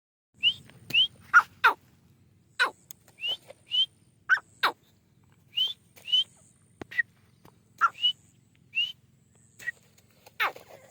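Partridges calling: a run of short, sharp whistled notes, paired quick rising chirps mixed with steep downward-sliding whistles, about two a second.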